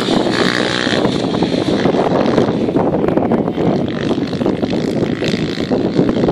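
Small engine of a children's minibike running as the bike rides off across a grass course.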